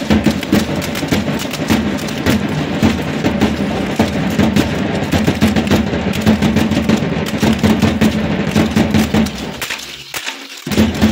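Live matachines dance music: a steady held tone under dense, fast percussive clicking from rattles and the dancers' stepping. The sound drops away briefly about ten seconds in, then picks up again.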